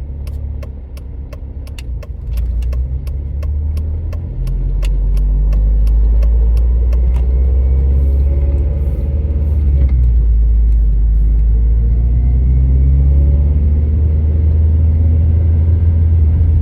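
2007 Honda Civic Si's 2.0-litre four-cylinder engine running with a heavy low rumble, getting louder about five seconds in. A sharp, even clicking of about three a second runs over it for the first seven seconds, then stops. The owner says it sounds like a tractor and suspects the valves.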